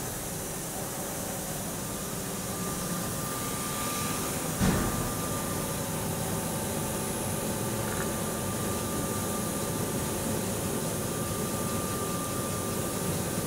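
2007 Hurco VM1 vertical machining center running a program: a steady machine hum with a thin steady whine, from the spindle turning at 1200 rpm and the axis drives. A single thump comes about four and a half seconds in.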